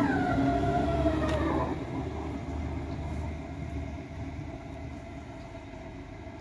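S-Bahn electric multiple unit, a DB Class 423, pulling out and passing close: its electric motor whine drops in pitch as it goes by in the first couple of seconds. A low rumble follows, getting quieter as the train moves away.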